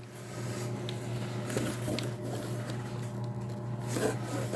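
Faint rustling and crinkling of a shipping package being handled and opened, with scattered small clicks, over a steady low hum.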